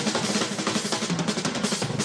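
Drum kits played fast and hard in a drum battle: a rapid, unbroken stream of snare and tom-tom strokes with bass drum and cymbals.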